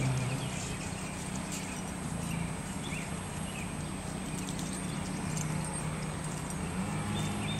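A mare and her two-day-old foal moving about on grass: soft hoof steps over a steady low hum.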